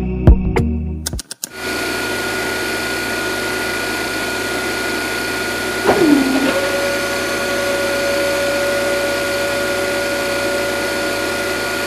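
Small electric motor of a DIY model drilling machine running steadily with a whine. About six seconds in, one tone drops quickly in pitch and a new steady tone then holds to the end.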